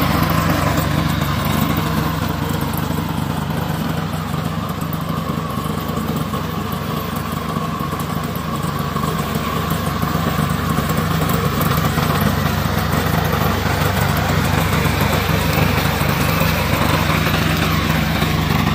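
Gasoline engine of a remote-controlled lawn mower running steadily, dropping slightly in level through the middle and picking up again.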